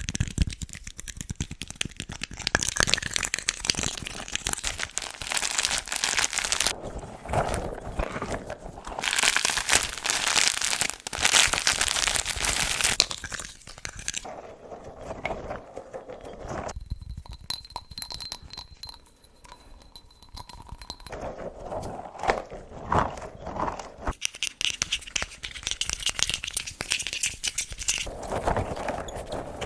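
Close-miked ASMR trigger sounds: crinkling and crackling made up of many quick clicks, changing to a different texture every few seconds, with a quieter stretch a little past the middle.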